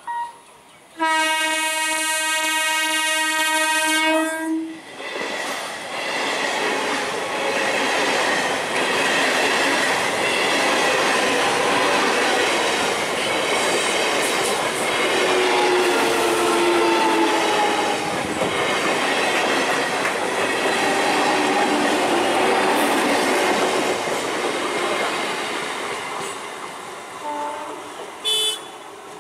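Indian Railways EMU local train sounding a long horn blast of about three and a half seconds, then running past with its wheels clattering over the rail joints, the noise fading near the end. A short horn toot comes near the end.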